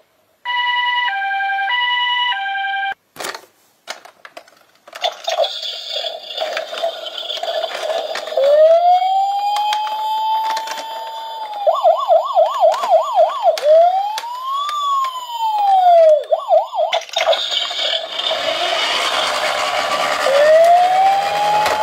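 Toy vehicle electronic sirens. A toy ambulance's two-tone hi-lo siren alternates briefly at the start, then after a few clicks a toy police car's electronic siren sounds: a steady tone, a rising wail, rapid yelps, a slow rise and fall, more yelps, and another rising wail near the end.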